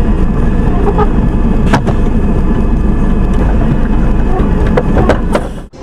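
Steady road and engine rumble inside a moving vehicle's cab, with a few sharp clicks about two seconds in and again near the end. It cuts off suddenly just before the end.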